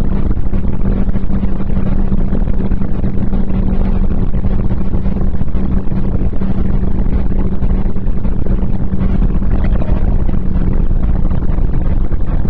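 Renault Clio 1.6 16v four-cylinder engine running hard at steady revs, a steady drone over heavy low rumble and road noise. The drone drops away near the end.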